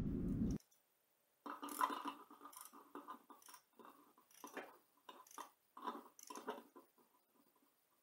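Faint, irregular clicks and rattles of a socket wrench being worked on an engine's air-cleaner nut, starting about a second and a half in, after a low room hum cuts off suddenly.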